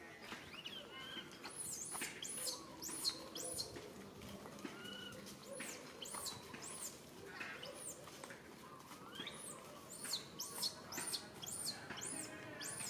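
Baby monkey giving distress calls for its mother: a long run of short, high-pitched squeals, each rising and falling, with a few lower calls mixed in.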